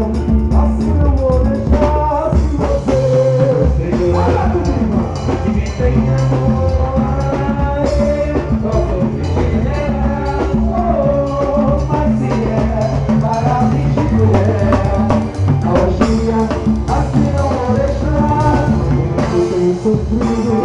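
Live band music: drums and percussion keep a steady beat under a sung melody.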